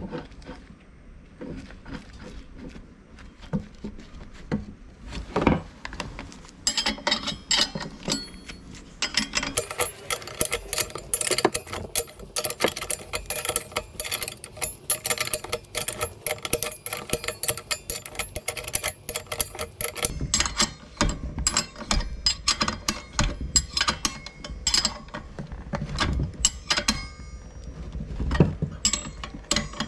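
Metal tools and brush cutter clutch parts clicking and clinking during hand work. The sounds are sparse at first, then become dense, rapid runs of ticks from several seconds in.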